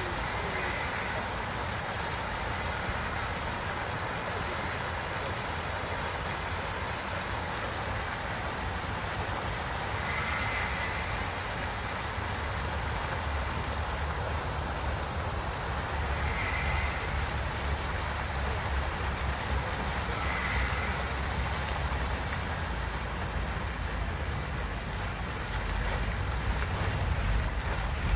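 Jets of a decorative fountain spraying and splashing into its basin: a steady rush of falling water. A low rumble grows under it in the second half.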